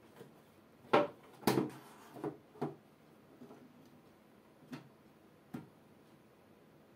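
An aquarium lid being lowered and handled on the tank: a few sharp knocks and clunks, the loudest two about a second in, then smaller knocks and two light taps near the end.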